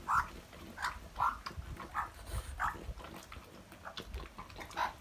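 A dog eating from a cast iron skillet, making short repeated sounds about two a second over a low rumble, as it keeps its food from the magpie beside it.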